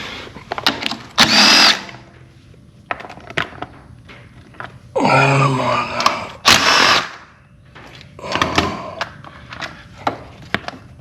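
Cordless impact gun with a 10 mm socket running in four short bursts, backing out the bolts of an ATV's side panel. Clicks and knocks of the tool and socket are heard between the bursts.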